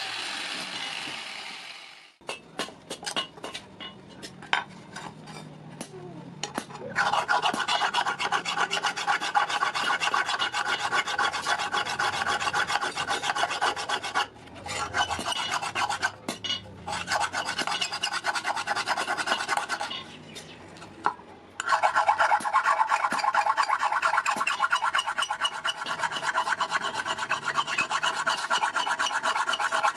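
A hand file scraping steel in quick back-and-forth strokes, in three long runs with short pauses between, as a hand-forged scissor is filed to shape. A steady hiss cuts off about two seconds in, followed by scattered clicks and taps before the filing starts.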